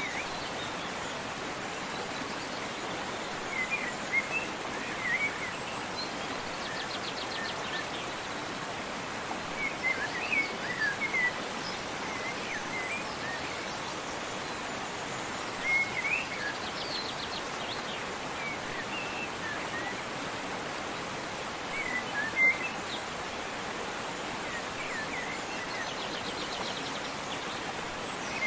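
Steady rush of a waterfall, with small birds chirping in short clusters of quick high notes every few seconds and a fast high trill now and then.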